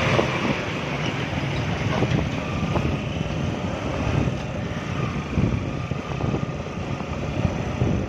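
Motorcycle ridden at highway speed: wind buffeting the phone microphone over a steady rush of engine and road noise.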